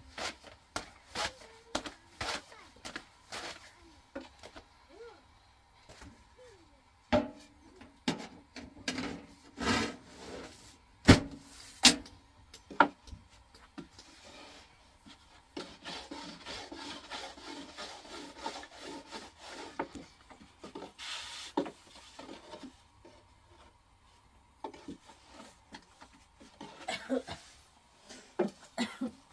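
Long thin wooden rolling pin working bread dough on a round wooden board: a steady rubbing as it rolls, broken by irregular sharp wooden knocks and taps as the pin is lifted and set down, the loudest a few knocks about a third of the way in.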